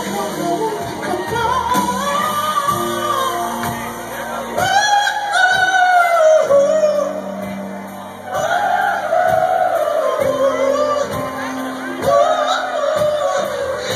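Live rock band playing, with a male lead singer singing melodic lines into a microphone over drums and low bass notes.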